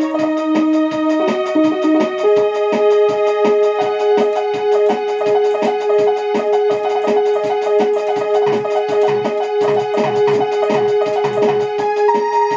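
Portable electronic keyboard played live with a synthesized piano-organ sound: a long held lower note under a quick repeating figure of higher notes, over a steady beat.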